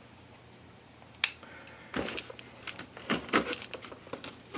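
A knife cutting through the packing tape and flaps of a cardboard box: one sharp click about a second in, then an irregular run of short scratchy clicks and scrapes as the blade works along the tape.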